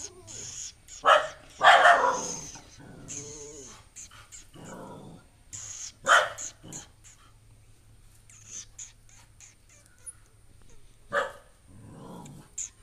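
A dog barking at an unfamiliar stray puppy, threatening it: a run of barks over the first six seconds, the loudest about two seconds in, then a pause and one more bark near the end.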